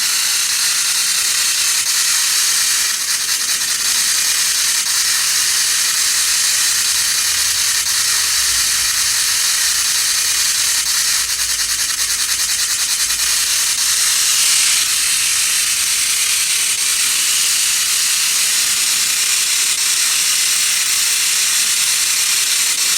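Steady, loud radio static hiss, mostly high-pitched, with a fine rapid crackle in places: a spirit box scanning through stations while spirit voices are listened for.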